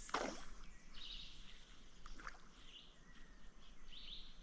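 A splash at the water surface from a noisy topwater lure worked for peacock bass, sharpest right at the start with a weaker splash about two seconds in. A few faint bird chirps sound over the quiet outdoor background.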